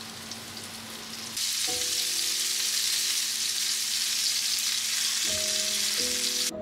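Flour-dusted pork rolls sizzling in hot oil in a frying pan, a steady crackling hiss that gets louder about a second and a half in. Soft background music with sustained notes comes in under it.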